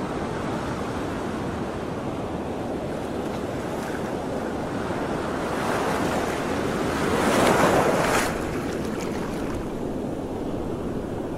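Sea waves washing and wind on the microphone, a steady rush of noise that swells louder for a couple of seconds past the middle and then drops back suddenly.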